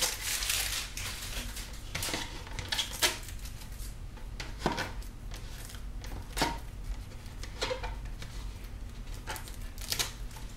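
Crinkling of a torn-off plastic soda-bottle label, then scattered light clicks and taps as a thin plastic 2-liter bottle is handled and picked at with the fingers.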